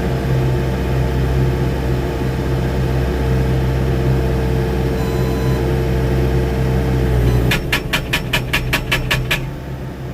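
Mecalac machine's diesel engine running steadily with a held hydraulic whine, then near the end its hydraulic breaker hammer pounds in rapid strikes, about six a second for about two seconds, and stops.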